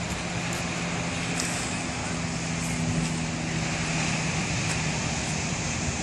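A motor vehicle engine running steadily, a low even hum over a constant rushing noise.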